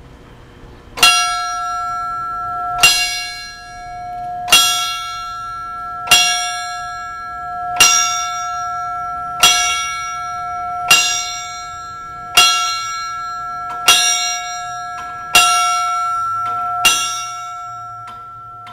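Ceremonial fire bell on a wooden stand struck by hand eleven times, about one and a half seconds apart, each stroke ringing on into the next. It is the traditional fire service toll, one strike for each of the city's eleven fire companies, and the ringing fades away after the last strike.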